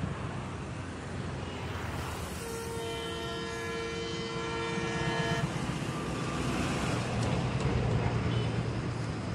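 An ALCo WDG3A diesel locomotive sounds its horn in one long blast of about three seconds, starting some two and a half seconds in, while its 16-cylinder ALCo engine rumbles as it approaches. The engine rumble grows louder in the second half as the train draws nearer.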